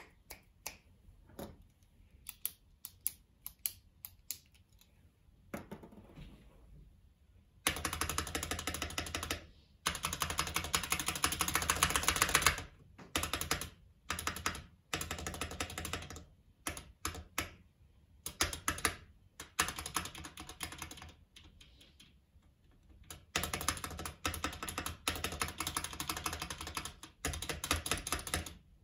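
Mechanical keyboard being typed on. Single keystrokes come first, with small gaps between them. Then come fast, dense runs of typing, about a second or two in length the first time and longer near the end, with scattered keystrokes in between.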